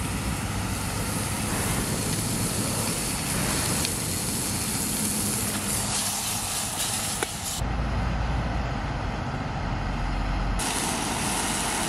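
Chicken sizzling in a titanium pan over an MSR Pocket Rocket 2 gas canister stove, with steady road traffic behind. For a few seconds past the middle the sizzle drops away and a low rumble takes over.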